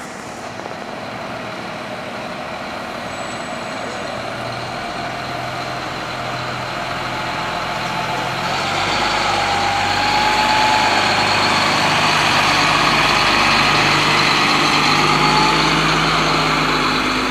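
Fire engine's engine running as the truck drives slowly past close by, getting steadily louder and at its loudest from about ten seconds in.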